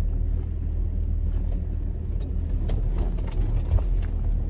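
A car driving along: a steady low rumble of engine and road noise, with a few faint short clicks and knocks in the middle.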